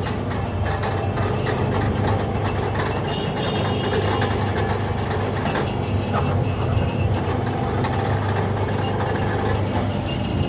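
Sugarcane juice roller crusher running steadily as cane stalks are fed through its rollers, its drive giving a steady low engine hum.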